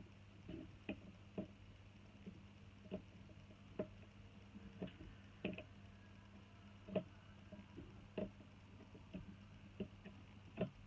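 Soldering iron reflowing cold and cracked solder joints on a laptop power adapter's circuit board: faint, irregular small ticks and clicks about once a second over a low steady hum.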